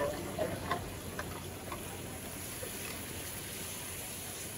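Metal tongs clicking and scraping against a metal grill pan while stirring sliced meat, a few light clicks in the first couple of seconds, then a steady faint hiss.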